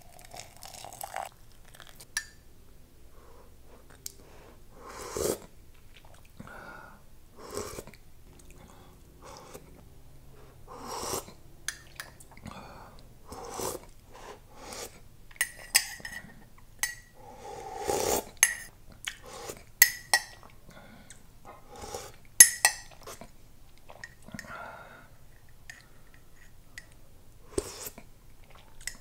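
Metal teaspoon clinking against a ceramic mug, some strikes ringing briefly, between slurps as hot tea is sipped off the spoon, over and over at irregular intervals.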